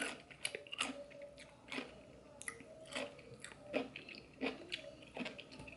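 A person chewing a bite of crisp pickle with the mouth closed: faint, irregular wet crunches, about one or two a second.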